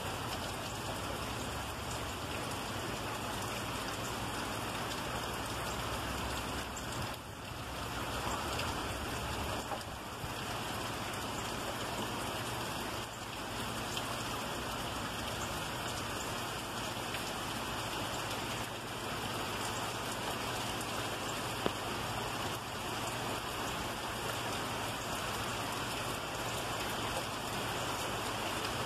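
Heavy rain pouring down in a steady, dense hiss of drops splashing on wet pavement and trees.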